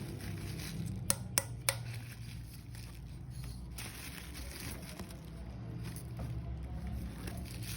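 Three quick light clicks of hard car parts being handled, about a second in, over a steady low hum.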